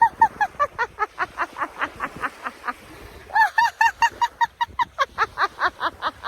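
A woman laughing on purpose in a laughter-yoga style exercise: fast, high-pitched, rhythmic "ha-ha-ha" in two long bursts with a short break between them.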